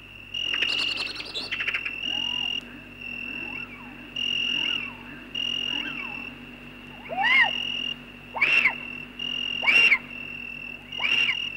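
Repeated high chirping calls, a fixed-pitch tone coming on and off about every second and a half, joined from about seven seconds in by a rising-and-falling chirp with each call, over a low steady hum. A brief rattle of rapid clicks comes near the start.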